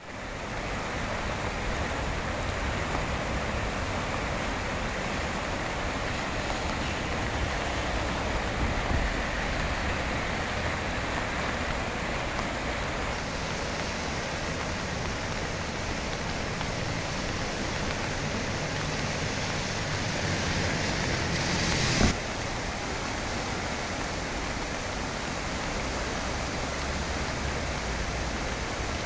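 Creek in flood after heavy rain: swollen, muddy water rushing fast over its bed, making a steady noise of flowing water with a low rumble under it. A short, sharp noise stands out about three-quarters of the way through.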